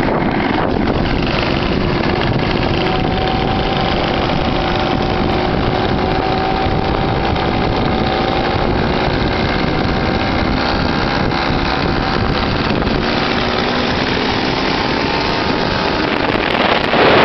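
Motorcycle engines running at a steady road speed, their drone drifting slowly in pitch, under a constant rush of wind on the microphone that grows louder near the end.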